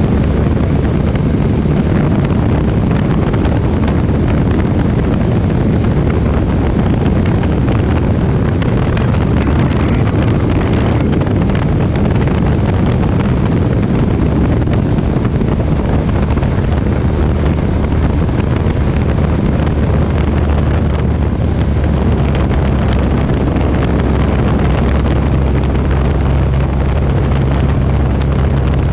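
Light airplane's piston engine and propeller droning steadily, with wind rushing over the microphone; the engine note shifts slightly about twenty-five seconds in.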